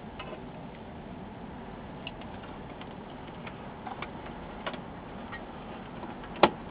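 Scattered light clicks and taps of a screwdriver and screws against a thin sheet-metal monitor chassis as the board screws are driven back in, with one sharper knock near the end, over a steady faint hiss.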